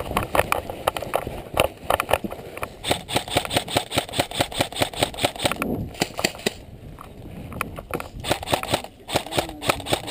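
Running footsteps on dry grass and dirt with the player's gear jostling, a rapid, fairly even series of thuds about four or five a second, thinning out briefly in the middle.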